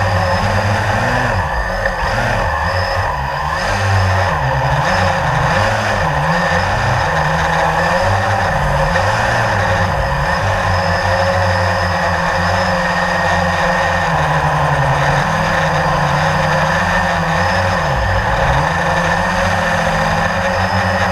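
Quadcopter drone's electric motors and propellers buzzing continuously over a steady hiss, the pitch wavering up and down as the motor speeds change.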